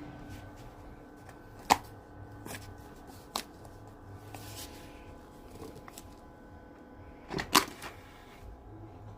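A few sharp clicks and knocks of things being handled, the loudest a double knock near the end, over a faint steady hum.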